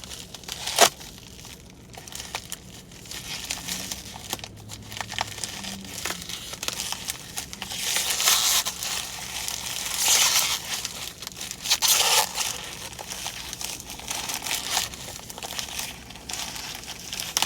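Packaging of a mail-order card package being handled, crinkled and torn open by hand, with crackles and rustling that come and go, louder in patches partway through.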